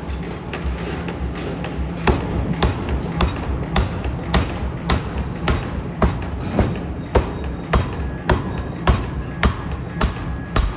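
Pneumatic power forging hammer striking metal in a steady rhythm of nearly two blows a second, the blows growing louder about two seconds in, over a steady low machine hum.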